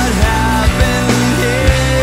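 Rock music with drums.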